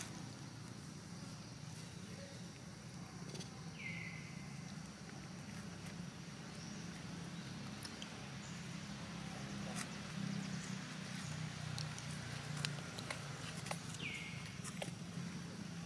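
Outdoor ambience with a steady low hum, faint scattered clicks and rustles, and a short high call that falls in pitch, heard twice: about four seconds in and near the end.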